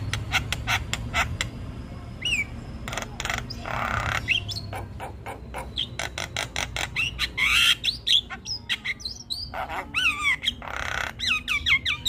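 Javan myna calling without pause: a rapid string of sharp clicks, harsh squawks and short falling whistled notes, with a longer rasping call about four seconds in and another near eleven seconds.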